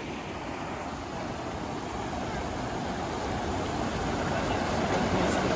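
Shallow mountain creek rushing over rocks and small rapids, a steady hiss of running water that grows gradually louder.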